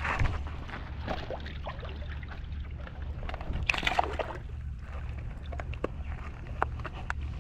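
Small waves sloshing against shoreline rocks, with scattered short knocks and clicks and a louder rush of sound about four seconds in.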